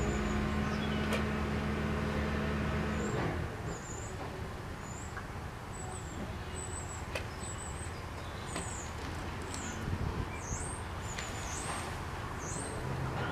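Small birds chirping, a run of short high calls repeated every second or so over steady background noise. A low steady hum plays underneath for about the first three seconds, then stops.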